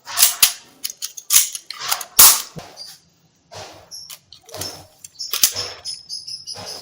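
Toy gun firing: several sharp snaps in the first two and a half seconds, the loudest just after two seconds. Softer clattering bursts follow, then high steady beeping tones from about five seconds in.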